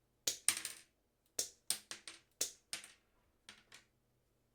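About ten sharp metallic clicks and snaps in quick, irregular clusters, most likely electrician pliers being handled, their steel jaws and handles clicking together.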